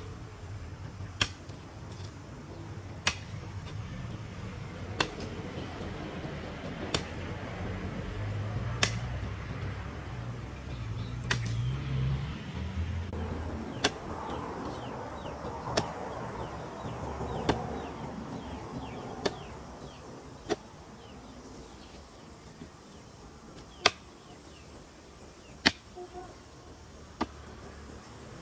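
Long-handled hoe chopping into dry, clumpy soil, one sharp strike about every two seconds.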